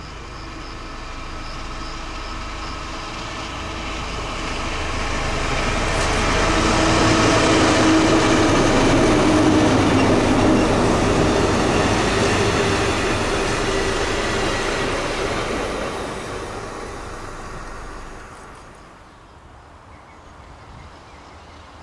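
A works train of diesel locomotives hauling track machines, among them a DGS 92 N dynamic track stabiliser, passes close by: the engine hum and wheel-on-rail noise grow louder, peak and fade. Near the end the sound drops suddenly to a much quieter background of wind and faint distant rail noise.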